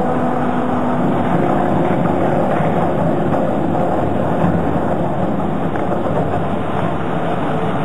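Brentwood BWS 400-1250 single-shaft shredder running, a steady, loud mechanical noise.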